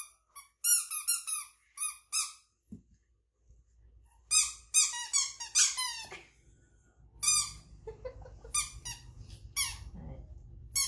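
Rubber squeeze toys squeaking: three runs of short, high squeaks, about a second and a half to three seconds each, with quiet pauses between them.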